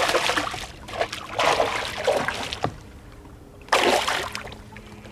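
A hooked pike thrashing and splashing at the water's surface beside the boat, in three bursts of splashing, the middle one the longest.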